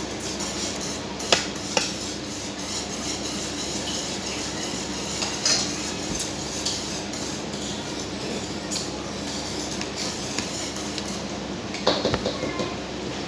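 Cutlery clinking against a plate while eating: a handful of sharp clinks, the loudest about a second in and a cluster near the end, over a steady low background hum.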